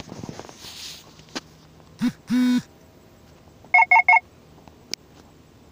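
Rustling handling noise as the camera is swung around, then electronic beeps: a short and a longer low buzzing tone about two seconds in, followed by three quick, higher beeps a moment later.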